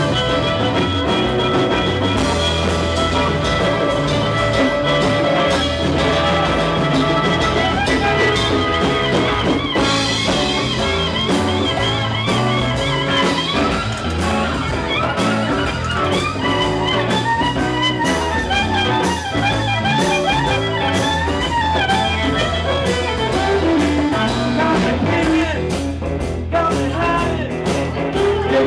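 Live blues band playing an instrumental break, with a fiddle leading in sliding, wavering lines over electric guitar and a drum kit.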